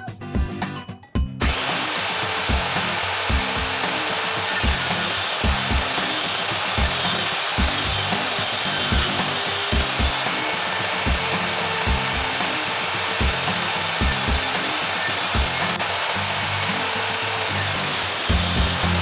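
An electric power tool starts about a second and a half in and runs steadily with a high whine, over background funk music with a steady beat.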